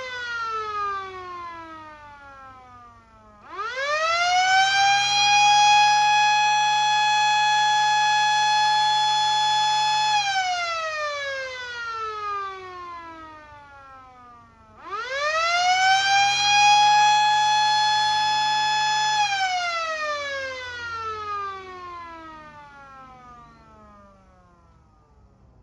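Fire siren sounding in wind-up cycles: it trails off at the start, then twice winds up quickly to a steady wail, holds it for several seconds and slowly winds down.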